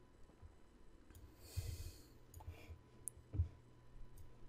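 A soft breath out near the microphone about a second and a half in, over faint room tone, followed by a couple of light clicks.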